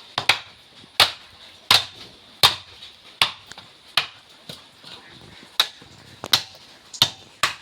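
Repeated sharp hammering strikes on wood, a steady rhythm of roughly one blow every three-quarters of a second.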